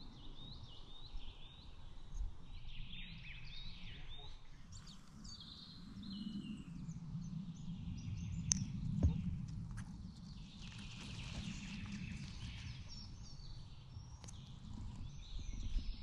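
Several small songbirds singing, with short varied phrases overlapping throughout. Under them are soft footsteps and rustling on the forest floor, with a couple of sharp clicks about nine seconds in.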